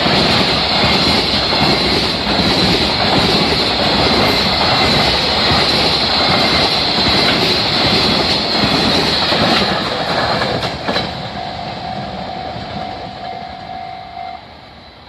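EF66-hauled container freight train rolling past at speed, its wagons making a loud, continuous rumble and rattle. The last wagons clear about eleven seconds in and the sound drops away. A steady tone sounds for about three seconds near the end.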